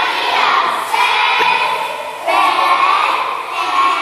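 A group of young girls chanting a cheer in unison, in long drawn-out shouted words, about three of them.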